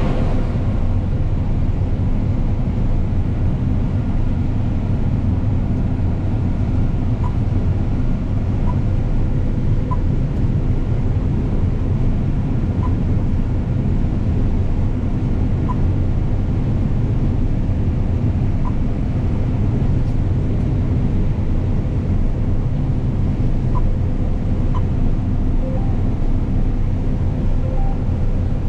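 Combine harvester's diesel engine and machinery running steadily under load, a deep even drone, with a few faint short high blips now and then.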